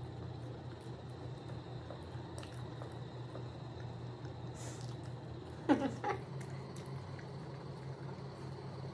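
Faint chewing of pizza over a steady low hum, with one short vocal sound a little after halfway through.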